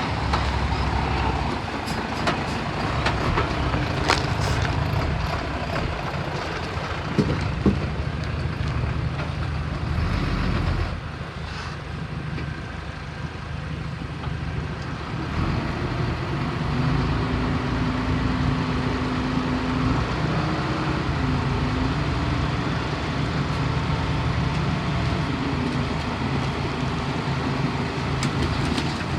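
Diesel engine of heavy earthmoving machinery working under load, with sharp metallic knocks and clanks in the first half. About eleven seconds in the engine drops back, then from about sixteen seconds it holds a higher steady note.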